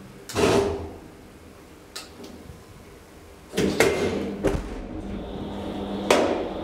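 Old DEVE hydraulic elevator heard from inside the car: a loud door bang about half a second in, a click, then a run of clunks and a deep thud as the car jolts into motion. A steady hum with a high thin whine follows while the car travels, broken by one more sharp knock.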